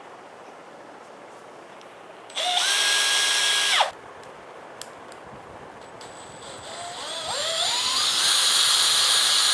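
Cordless drill clamped in a vise, spinning a meat grinder's auger held in its chuck. It runs with a rising whine for about a second and a half, then stops. After a click it is brought up in steps to a steady high whine that carries on.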